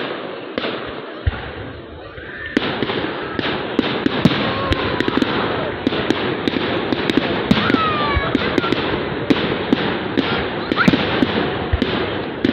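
Fireworks going off: scattered bangs, then a dense run of crackling pops and cracks from about two and a half seconds in.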